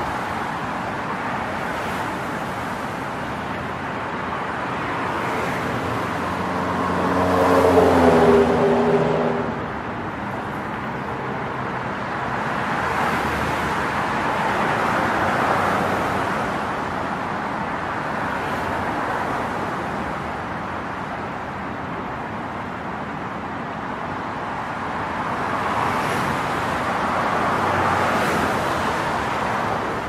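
Road traffic: cars passing in slow waves of tyre and engine noise. About eight seconds in, one louder vehicle engine goes by, its note falling as it passes.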